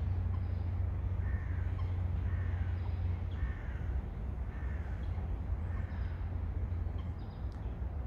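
A crow cawing five times, about a second apart, over a steady low rumble.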